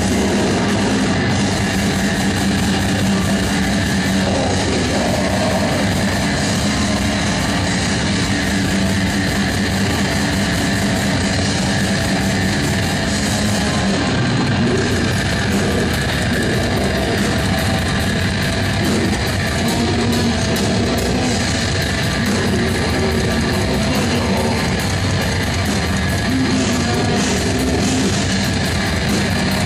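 Black metal band playing live: distorted electric guitars and drums in a dense, loud, unbroken wall of sound.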